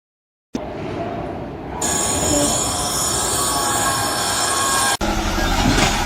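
Loud machinery noise with a steady high-pitched squealing over it from about two seconds in, then an abrupt cut about five seconds in to a different machine running.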